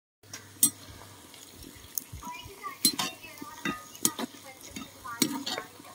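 A metal slotted spoon stirring rice boiling in a large iron kadai over a wood fire, knocking and scraping against the pan several times.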